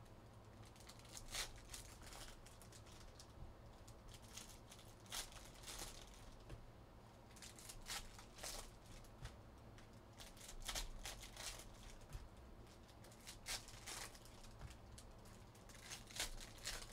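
Foil trading-card pack wrappers being torn open and crinkled, with cards sliding against each other. The sound is a string of faint, scattered rustles and swishes.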